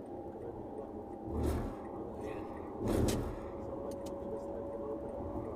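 Steady road and engine noise heard inside a moving car's cabin, with two dull thumps about a second and a half apart.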